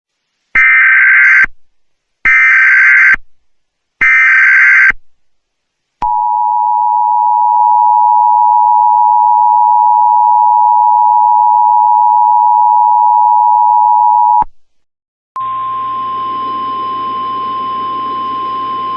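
Emergency Alert System alert: three loud one-second bursts of the digital SAME header data, each a harsh buzzing screech, then the two-note EAS attention signal held steady for about eight seconds before cutting off. After a short gap, a single-note NOAA Weather Radio warning alarm tone starts over radio hiss near the end.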